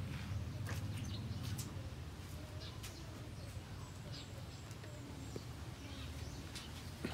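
Birds chirping intermittently, short high chirps scattered through, over a low steady background rumble.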